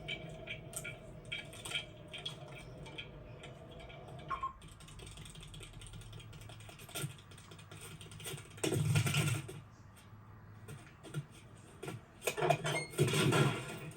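Animated-film sound effects: a string of small clicks and light clattering over a faint steady hum that stops about four seconds in, with two louder bursts of noise, one in the middle and one near the end.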